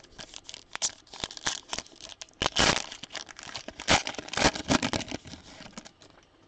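Plastic foil wrapper of a 2021 Donruss trading card pack being torn open and crinkled in the hands: a run of sharp crinkles and rips, loudest about halfway through.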